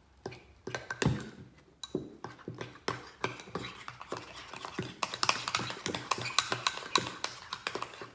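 A utensil clinking and scraping against a bowl as a sticky slime mixture is stirred: irregular taps at first, then quick, dense clicking from about halfway through.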